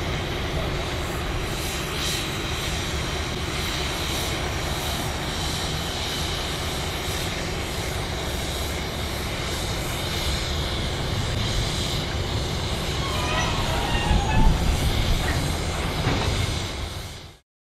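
Y class diesel shunting locomotive running as it moves slowly along the yard tracks, a steady diesel rumble. About 13 to 15 s in it grows a little louder and a few faint high squeaks come through, then the sound cuts off abruptly near the end.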